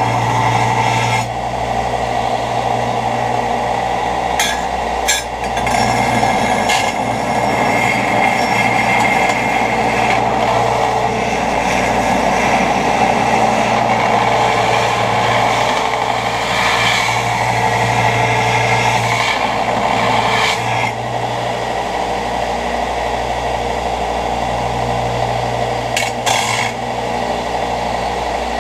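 Belt grinder running with its motor humming steadily while the abrasive belt grinds a steel blank cut from an old scythe blade. The grinding rasp grows louder in several short spells as the steel is pressed onto the belt.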